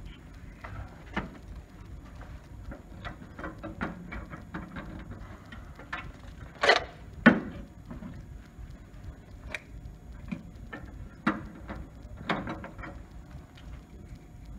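Handling noise: scattered small clicks and knocks, with two louder knocks close together about halfway through.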